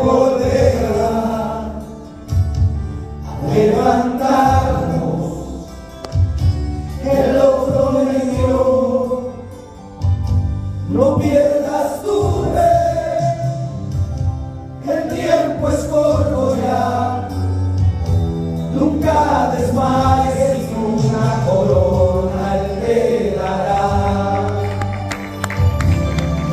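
Male vocal group singing a Spanish-language worship song (alabanza) together through microphones, over instrumental accompaniment with a steady bass. The singing comes in phrases of about four seconds with short breaths between.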